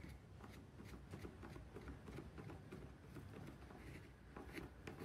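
Faint, irregular small clicks and scrapes of a screwdriver and hands handling the hedge trimmer's plastic housing and wiring.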